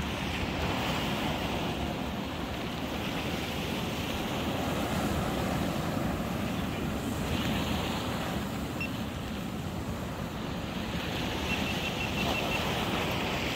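Sea surf washing and breaking against a rocky shoreline in a steady, swelling rush, with wind buffeting the microphone.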